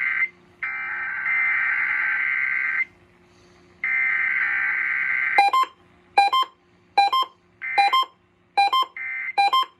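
Emergency Alert System data header: the tail of one long burst of buzzing digital SAME tones, then two more bursts with short gaps, followed by a run of short beeps of stacked tones, roughly one every 0.8 s, with brief data-like bursts between them.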